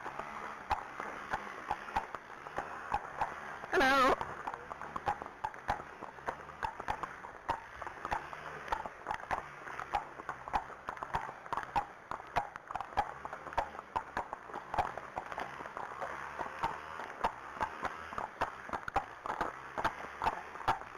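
Hooves of a Friesian and an Arabian horse clip-clopping at a walk on a wet tarmac lane, in a steady uneven rhythm. About four seconds in there is a brief, loud, wavering call.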